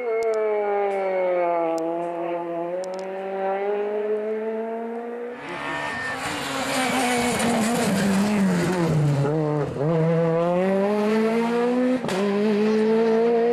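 Rally car engine at speed on a stage. The engine note falls away, then swells and rises as a car approaches, and about five seconds in it rushes close past, a loud blast of engine and tyre noise with the engine pitch dipping and climbing through gear changes. It carries on accelerating away with a sharp crack near the end.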